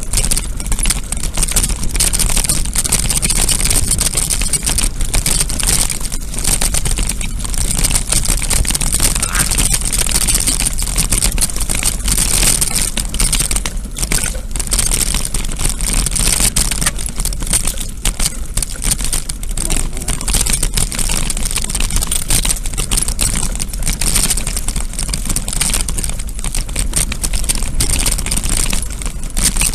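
Continuous clattering and rattling with wind rumble, as from a vehicle-mounted camera and its mount jolting along a rough dirt track.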